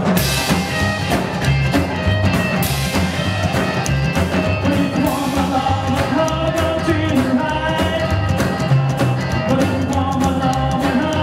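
A live rockabilly band playing an up-tempo number: upright bass, acoustic and electric guitars and a drum kit, with a man's lead vocal coming in about five seconds in.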